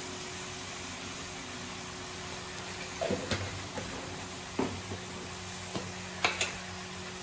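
Steady hiss with a low hum, broken by a handful of short sharp knocks or clinks from about three seconds in to about six and a half seconds in.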